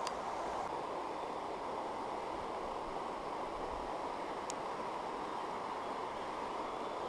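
Steady rush of a shallow stream running over stones, with a single light click about four and a half seconds in.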